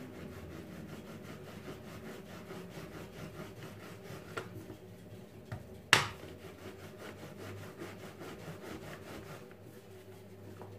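Plastic rolling pin rolling out a ball of dough on a floured countertop, a steady rubbing back and forth. There is one sharp knock about six seconds in and a lighter one a little before it.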